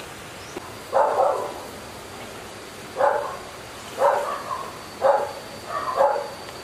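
A dog barking: five short barks, roughly one a second, starting about a second in.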